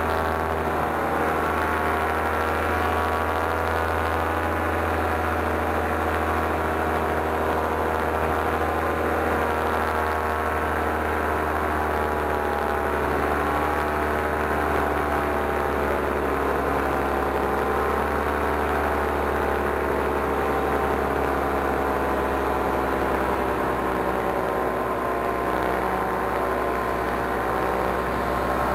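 Paramotor engine and propeller running steadily in flight, a continuous drone whose pitch drifts slightly up and down with the throttle.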